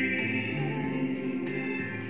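A male singer singing with harmony backing vocals, held notes in several voices, played back through a TV's speakers and re-recorded.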